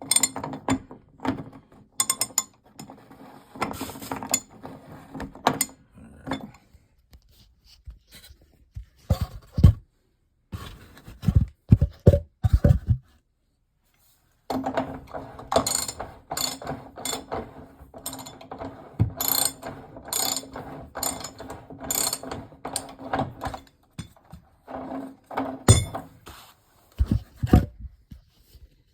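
Ratchet wrench clicking in runs as the lower heating element of an electric water heater is unscrewed, with a few heavy knocks around the middle.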